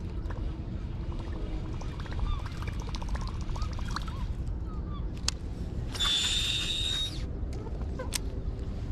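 A fishing reel whirs for about a second, with a steady high whine, between two sharp clicks. Faint short bird calls come earlier over a constant low rumble.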